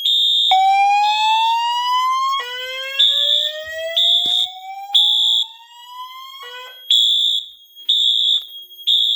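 Fire alarm evacuation signal between voice messages. A Wheelock AS horn strobe sounds a high horn tone in half-second pulses, three at a time with a pause (temporal-three). Under it, the voice-evac speaker plays two slow rising whoop tones.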